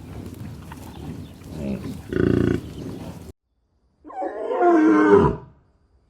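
Animal calls: two short pitched calls over steady background noise, then, after an abrupt cut, a loud, rough call about a second and a half long that drops in pitch at the end.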